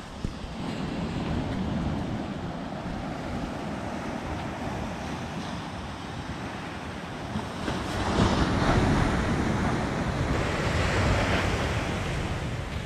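Ocean surf breaking on a sandy beach, a steady rushing wash that swells louder about eight seconds in and again near the end, with wind buffeting the microphone.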